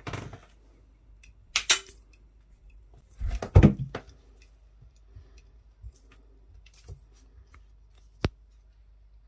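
A small bell on a cat toy jingling in short bursts, about three times, as cats bat at it, with a dull thump in the loudest middle burst. A single sharp click comes near the end.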